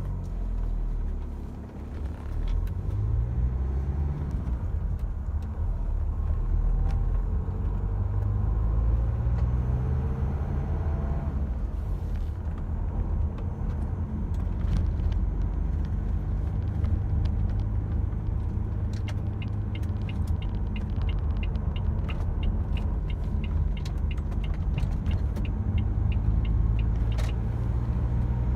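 Renault Espace IV engine running cold, heard from inside the cabin: a steady low hum whose pitch rises during the first several seconds. In the second half a regular ticking, about two a second, runs for several seconds.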